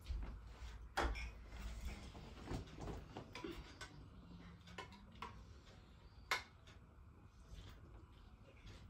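Spoons clicking and scraping against bowls as people eat, a scatter of light clicks and knocks with sharper ones about a second in and about six seconds in.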